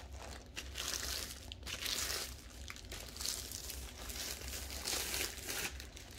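Clear plastic wrap around a rolled diamond painting canvas crinkling and tearing as it is pulled open by hand, in a run of short irregular rustles.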